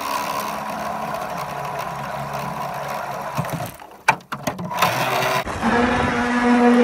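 A radio-controlled model trawler's motor runs as the hull pushes through thin broken ice, heard as a steady scraping hiss, with a few sharp knocks about four seconds in. A little after five seconds it changes to the motor's steady pitched hum.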